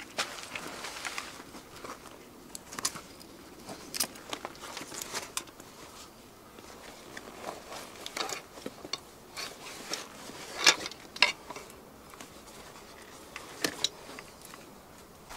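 Canvas rucksack being handled and packed: rustling fabric with sharp clicks and knocks of its buckles and of gear going in. Two louder clicks come a little past the middle.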